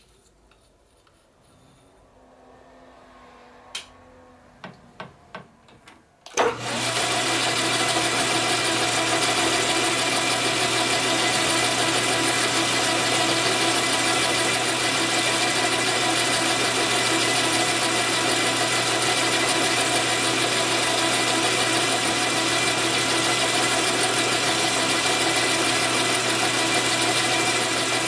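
A few light clicks, then a metal lathe switches on about six seconds in and runs steadily, its geared headstock humming and whining as the four-jaw chuck spins.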